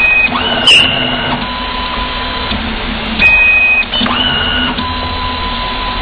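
Programmable coaxial cable stripping machine running its stripping cycle: its motors whine in short, steady pitched tones that step and glide up, with sharp clicks. The same sequence repeats twice, about three seconds apart.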